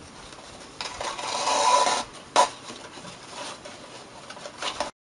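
Ruffled ribbon pulled through punched holes in a cardstock petal cone: a rasping slide of about a second, then a sharp tap and lighter paper rustling, cutting off abruptly near the end.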